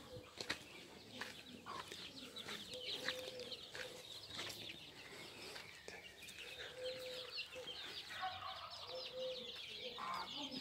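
Domestic chicks peeping: a busy stream of short, high cheeps, with a lower drawn-out call every few seconds.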